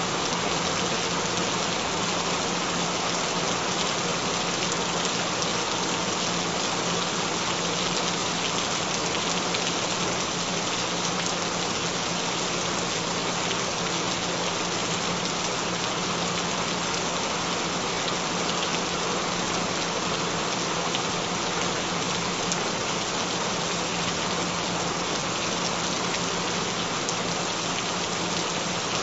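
Steady rain falling, an even hiss of rain on a surface with no thunder, over a steady low hum.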